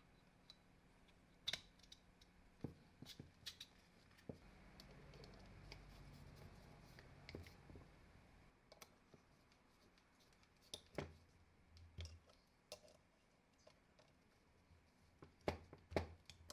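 Faint, irregular clicks and light knocks, a dozen or so scattered through a quiet stretch, the loudest pair near the end.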